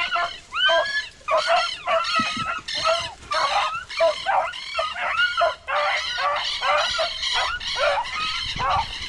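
Several beagles baying in a continuous run of overlapping, arching calls, the cry of hounds in full voice on a rabbit's trail.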